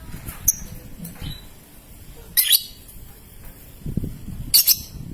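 Young lovebird giving short, sharp, high-pitched chirps, three times about two seconds apart.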